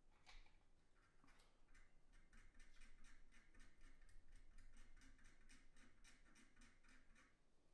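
A cotton bud rubbing back and forth over the painted plastic of a scale model, a faint run of short scratchy strokes at about three a second, with a single scrape near the start.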